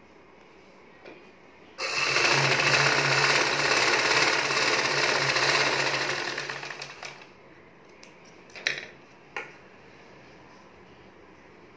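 Vidya sewing machine stitching fast. It starts abruptly about two seconds in, runs steadily for about four seconds, then slows to a stop, and a few light clicks follow.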